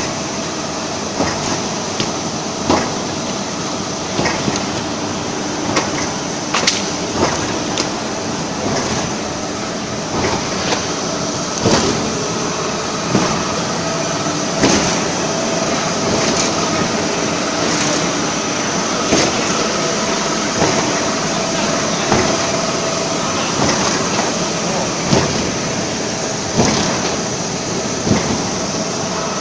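Veneer cutter machine running, a steady mechanical hum with a sharp knock about every one and a half seconds as its knife cuts the wood veneer.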